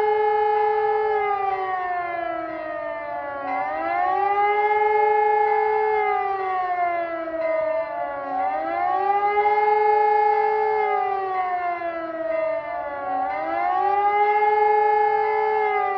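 Civil-defence siren sounding the rising-and-falling wail, the disaster-warning signal, here sounded as a test alarm. The pitch climbs quickly to a held peak and then slides slowly back down, about every four and a half seconds, with the loudness swelling and dipping in step.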